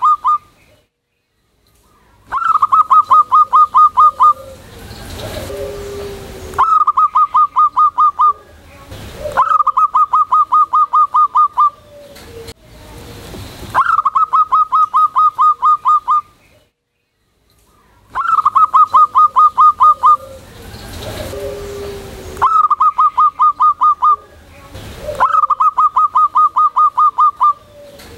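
Zebra dove (perkutut) singing its loud staccato cooing song: about seven phrases, each a rapid run of short, clipped notes lasting about two seconds, with brief pauses between them.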